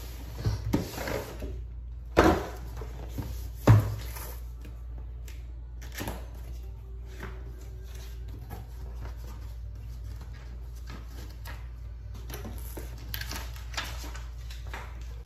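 Cardboard helmet box and its packaging being handled: two sharp knocks about two and four seconds in as box parts are set down, then soft rustling and scraping of cardboard and paper inserts.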